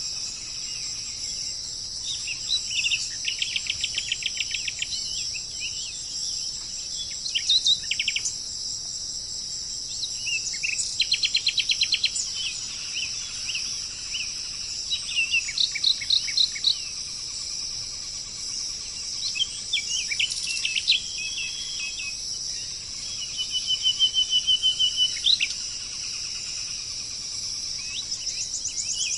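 Songbirds calling in short bouts of rapid trilled notes, several seconds apart, over a steady high-pitched insect chorus.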